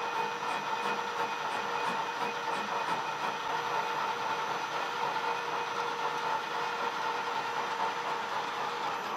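Metal lathe running steadily under a cut, a continuous mechanical noise with a steady whine on top.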